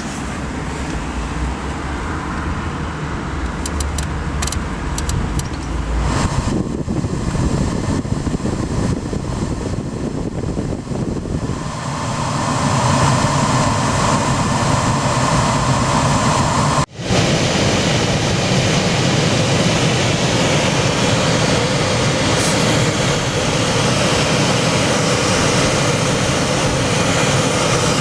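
Steady rushing noise of a car's air-conditioning blower running, growing louder about twelve seconds in, with a sudden brief dropout a little after the middle.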